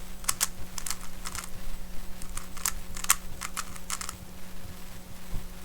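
Moyu Tanglong 3x3 speedcube being turned by hand: quick, irregular plastic clicks of its layers, several a second, turning smoothly without catching. A steady low hum runs underneath.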